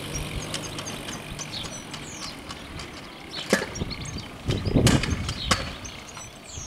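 Stunt kick scooter rolling over stone paving, with a sharp clack about three and a half seconds in and a louder knocking rattle around five seconds in. Small birds chirp throughout.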